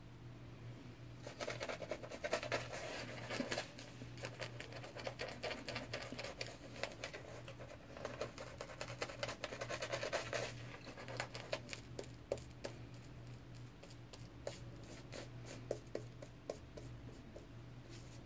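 Semogue 620 boar-bristle shaving brush swirled over a lathered, stubbled face: dense, rapid scratching strokes for several seconds, thinning after about ten seconds to scattered light clicks and scrapes.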